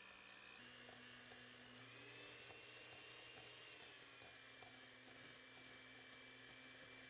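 Electric hand mixer running faintly while creaming butter and sugar in a glass bowl. Its steady motor hum steps up in pitch about half a second in and again about two seconds in, then drops back a little near four seconds.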